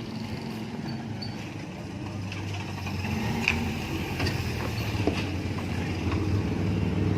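A motor vehicle engine running steadily with a low hum, growing louder toward the end, with a few light clicks and knocks in the middle.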